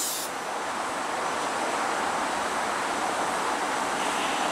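Steady rolling rumble of an approaching SEPTA electric commuter train.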